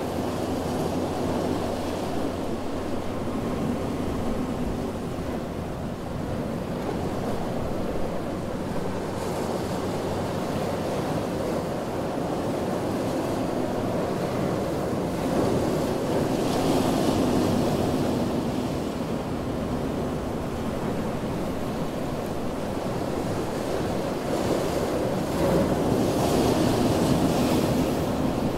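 Ocean surf washing continuously onto a beach, with louder waves breaking and hissing a little past halfway and again near the end.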